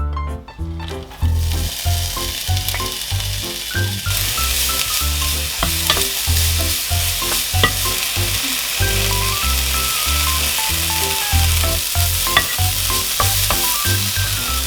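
Food frying in an oiled pan, a steady sizzle with stirring, starting about a second in and getting louder a few seconds later. Background music with a pulsing bass plays throughout.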